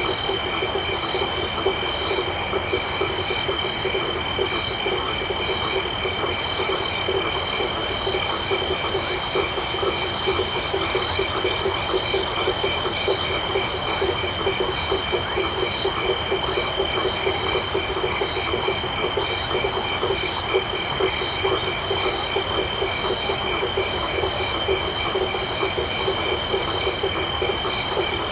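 Night chorus of frogs and insects: a dense, rapid pulsing of frog calls in the low range under several steady, high insect trills, unchanging throughout.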